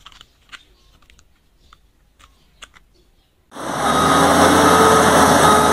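Faint scattered clicks and taps of a metal toy loader being handled. About three and a half seconds in, a loud, steady engine-like rumble starts suddenly and drowns everything else.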